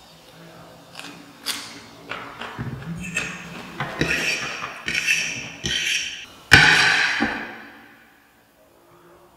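Metal fork tapping and scraping against a ceramic plate while twirling noodles, a handful of sharp taps followed by scraping bursts, with one louder hissing burst about two-thirds through that fades out.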